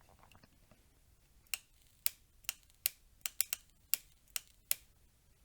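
Sharp, irregular electrical crackling from the Ferrex 40V cordless angle grinder's electronics as its switch is pressed: a run of clicks, about two or three a second, starting about a second and a half in. It is the fault noise the repairer first took for the motor brushes and later traced to under the control board, where there looks to be possible corrosion.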